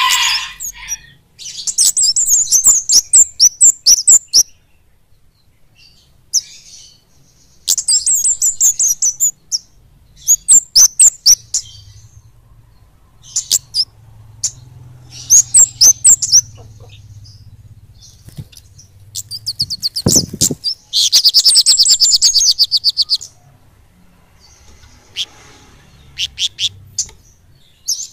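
Flowerpeckers (kemade) singing: bursts of high, rapid twittering trills with short pauses between them. The densest and loudest trill comes about three-quarters of the way through.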